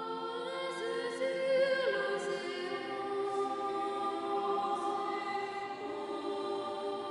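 A choir singing long held chords that echo as in a large church interior, the chord moving to new notes about one to two seconds in.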